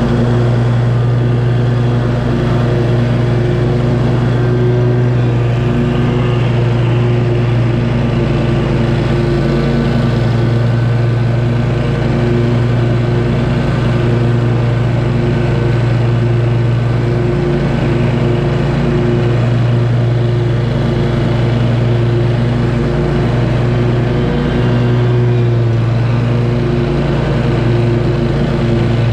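Scag V-Ride II stand-on mower's engine running steadily, close up, as the mower cuts grass.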